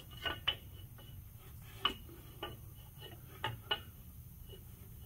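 A handful of light metallic clinks and taps, about seven at irregular intervals, each with a brief ring, as tools or parts are handled. A faint steady low hum runs underneath.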